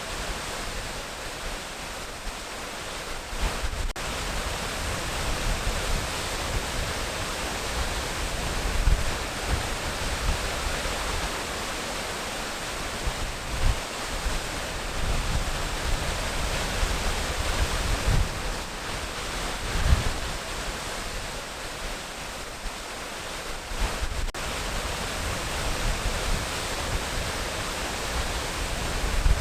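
Waterfall: a steady rush of falling water, with irregular low rumbles from the pounding water every few seconds.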